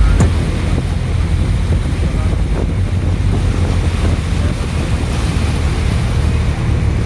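Steady low rumble of wind buffeting the microphone outdoors, with an even hiss over it.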